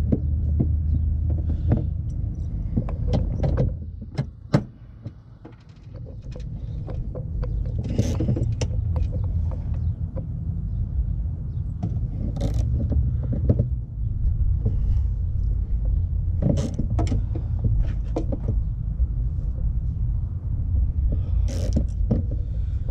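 Hand ratchet on a long socket extension working a headlight mounting bolt, with scattered sharp clicks and knocks of metal tools, over a steady low rumble.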